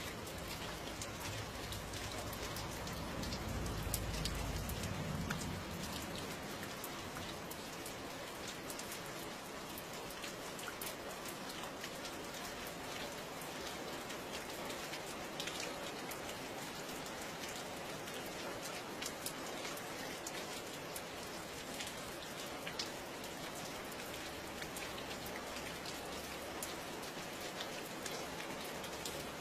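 Steady rain falling, with many separate drops ticking as they land. A low rumble swells and fades during the first few seconds.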